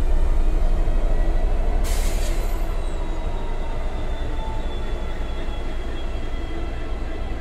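Freightliner Class 66 diesel locomotive 66522 moving slowly past, its two-stroke V12 EMD engine running with a steady deep rumble that slowly fades as it draws away. About two seconds in there is a brief hiss of air.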